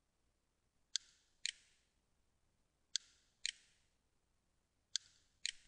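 Computer mouse button clicking while menu items are chosen: three pairs of short, sharp clicks, the two in each pair about half a second apart and a new pair every two seconds.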